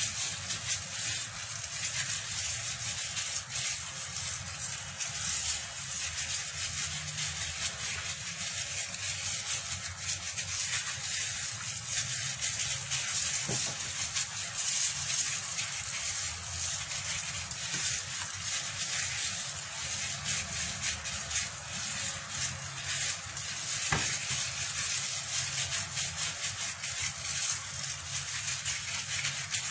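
Gloved hand kneading sliced chicken breast in a wet marinade in a foil tray: a continuous, irregular wet rubbing.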